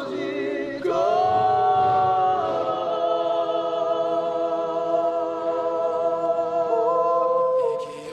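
Song vocals: several voices hold one long sung note in harmony, shifting pitch slightly near the end and then dropping away just before it ends.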